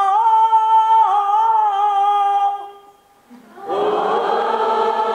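A woman intones one long, steady vowel for about three seconds: the sound she teaches as the vibration of the Divine Father. After a short pause, many voices in the audience join in and hold the vowel together.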